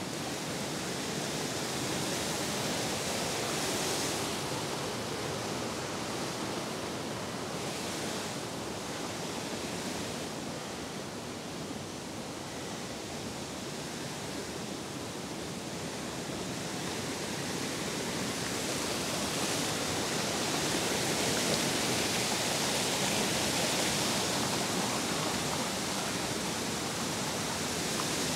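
Steady rushing of a waterfall and the stream below it, growing a little louder in the second half.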